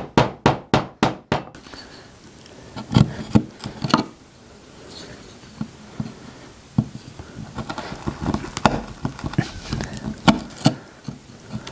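Mallet striking a wood chisel in quick even blows, about four a second, for the first second and a half as it cuts out the corner of a rebate in an oak frame. Then the chisel is pushed by hand, with scattered light knocks and scraping as it pares the wood.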